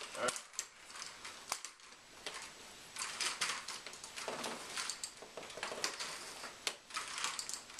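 Scattered light clicks, knocks and rustling as a man shifts in a wheelchair and handles an aluminium folding walker.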